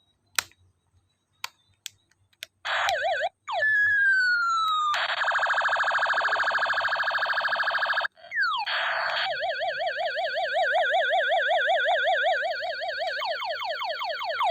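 Electronic toy space gun's sound chip playing synthesized laser effects: a few clicks, then falling tones, a buzzing pulsed tone, a quick falling sweep, a fast siren-like warble and repeated falling sweeps near the end.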